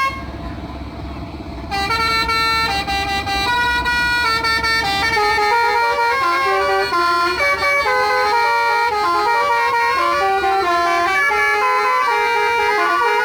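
Modified 'telolet' multi-tone air horn on a truck playing a quick tune of stepping notes. It starts about a second and a half in, after a low rumble.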